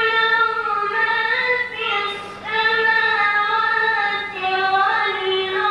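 A boy reciting the Quran in a melodic, drawn-out chant, holding long notes that glide slowly in pitch. There is a short pause about two seconds in.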